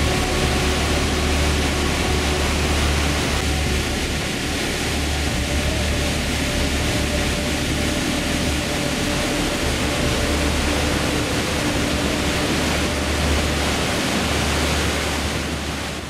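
Langfoss waterfall cascading down rock slabs: a steady, loud rush of falling water, heavy in the low end.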